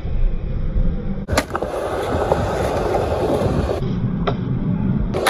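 Skateboard wheels rolling on concrete, with a few sharp clacks from the board.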